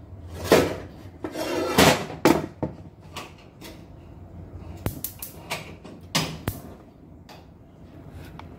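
Kitchen clatter: a series of separate knocks and clanks from cupboards and cookware being handled, busiest in the first few seconds.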